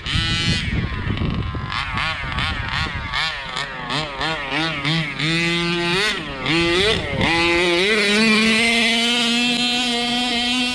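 Rovan 1/5-scale RC car's small two-stroke gas engine revving up and down over and over as the car is driven. About eight seconds in it is held at a steady high rev, then it drops away sharply.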